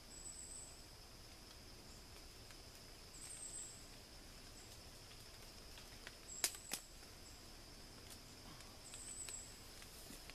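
Quiet woodland insect sound: a steady high drone with short, very high chirps every few seconds. Two sharp clicks about six and a half seconds in.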